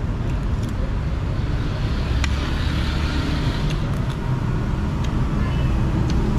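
A steady low rumble, with a few light clicks of a metal spoon against a plate or bowl scattered through it.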